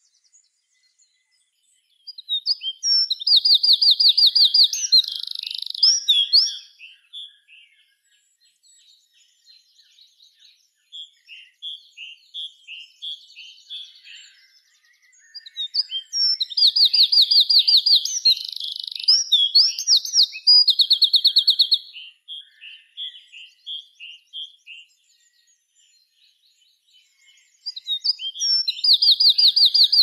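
Eurasian wren singing: loud song phrases of several seconds each, made of very fast high trills and chattering notes, three times about ten to twelve seconds apart, with softer scattered notes in between.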